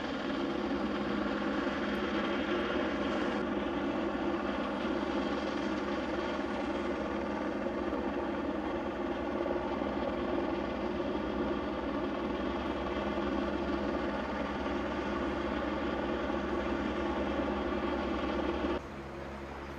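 Police helicopter flying overhead, its rotor and engine making a steady, continuous drone. The sound drops sharply about a second before the end.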